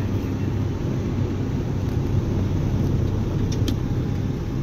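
Steady low rumble of a car's engine and road noise heard inside the cabin as it drives slowly through flood water on a street, with a wash of water noise under it. A couple of faint clicks come about three and a half seconds in.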